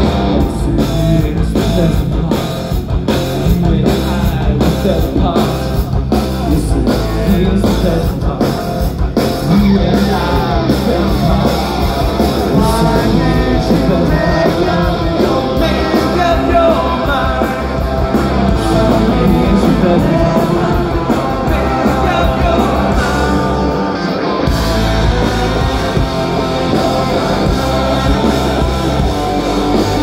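Emo rock band playing a song live: drums, electric guitars and bass under a sung lead vocal, with the bass dropping out briefly near the end.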